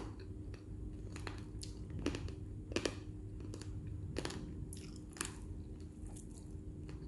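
Close-up chewing of crispy fried chicken wing, with irregular short crunches about once or twice a second.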